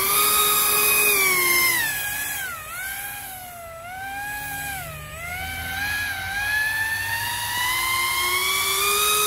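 Electric RC fan boat running on a 4S battery: its motor and air propeller whine, the pitch falling and rising with the throttle, dipping twice in the middle and then climbing steadily toward the end.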